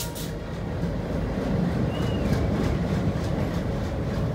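Passenger coaches of a train rolling past close by: a steady low rumble of wheels on rail, with faint, evenly spaced clicks as the wheels cross rail joints.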